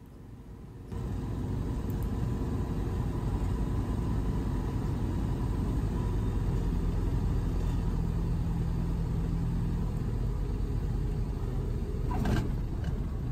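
Cockpit noise of a Colt 100 light-sport aircraft landing: its Rotax 912 ULS flat-four engine and propeller at low approach power together with airflow, a steady low drone that comes in about a second in. A brief bump near the end as the wheels touch the runway.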